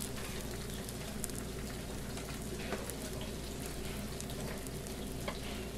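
Food sizzling on a hot cooking surface: a steady crackling hiss with scattered small pops, over a steady low hum.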